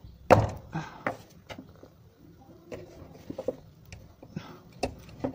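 A screwdriver levering a rubber exhaust hanger onto its hook under a car: a sharp knock about a third of a second in, then scattered clicks and scrapes of metal tool against the exhaust and rubber.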